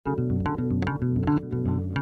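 Music: pitched notes over a low bass line, struck in a regular rhythm.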